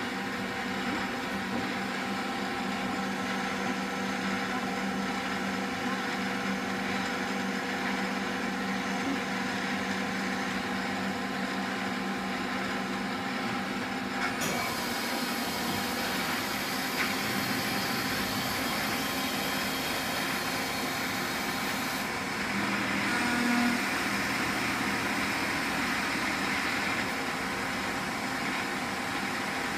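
1994 Citizen E32 Swiss-type CNC lathe running through a machining cycle: a steady machine hum made of several tones. About halfway through the sound changes as a high hiss joins in, and it changes again about three-quarters of the way through.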